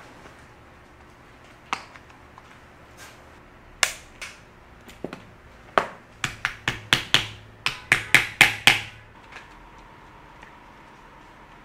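Small hand hammer tapping on a tent-fabric wallet piece lying on a board on a wooden workbench: about a dozen sharp blows that start a few seconds in, come faster in the middle, then stop.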